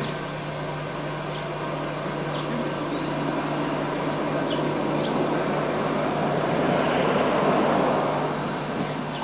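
Steam locomotive noise: a steady rushing sound that slowly builds, peaks about seven to eight seconds in, then eases off, over a constant low hum.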